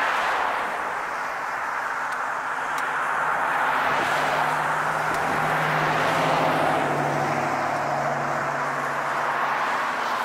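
Road traffic: cars passing one after another on a nearby street, a steady rush of tyre noise that swells and fades several times, with an engine's low hum as a vehicle goes by in the middle.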